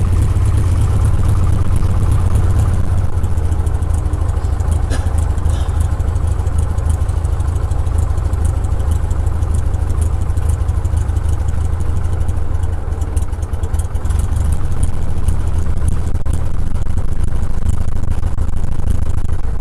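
Aeronca Champion's 90 hp Continental four-cylinder engine and propeller running steadily at taxi power, heard from inside the small fabric-covered cabin as a constant low drone.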